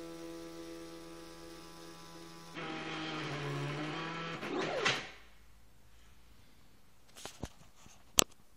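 The motors of a homemade pen plotter drive the pen carriage while it draws, giving a steady humming whine. About two and a half seconds in the whine grows louder and rougher, the pitch sweeps up and down as the head moves, and the motors stop about five seconds in. A few sharp clicks come near the end.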